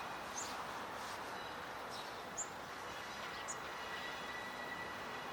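Birds chirping, several short high calls, over a steady background hiss; a thin steady high tone comes in about halfway through.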